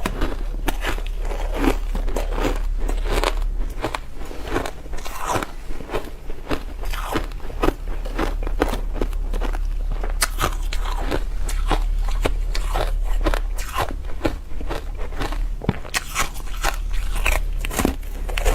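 Ice being bitten and chewed close to the microphone: an unbroken run of crunches and cracks, several a second.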